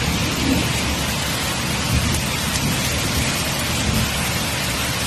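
Steady rain falling, a dense even hiss, with a low uneven rumble underneath.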